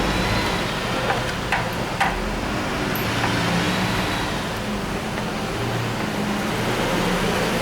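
A machine running steadily, with a few light clicks in the first two seconds.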